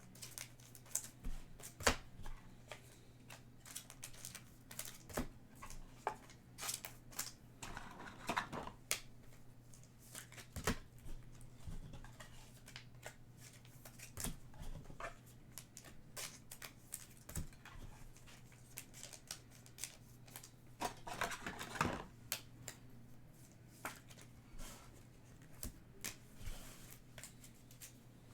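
Trading-card packs and cards being handled: many small clicks and taps as cards are flicked and sorted, with two longer crinkly rustles of pack wrappers, about eight seconds in and again about twenty-one seconds in. A steady low hum runs underneath.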